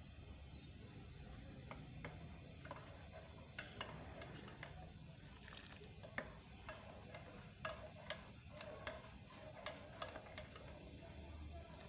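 Irregular light clicks and clinks of kitchen utensils and cookware, coming more often in the second half, over a faint steady low hum.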